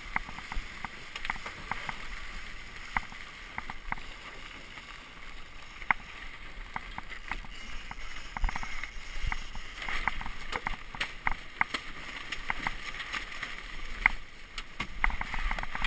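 Water rushing and splashing along the hull of a Melges 17 sailboat moving through the water, with frequent short sharp clicks and knocks scattered throughout.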